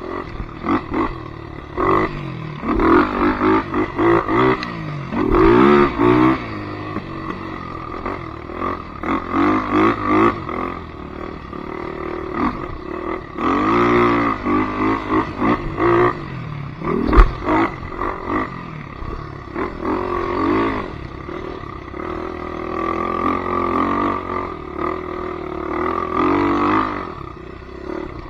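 Polaris Predator 500 ATV's single-cylinder four-stroke engine revving up and down over and over, its pitch rising and falling with the throttle. A single sharp knock stands out a little over halfway through.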